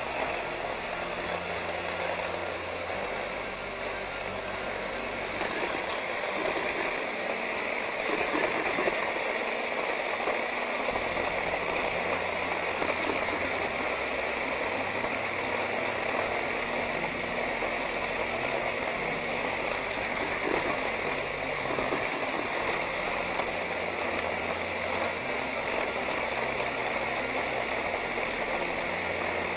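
Electric hand blender fitted with a chopper bowl, its motor whirring steadily as the blade grinds fresh coriander, garlic, ginger and onion into a coarse green paste.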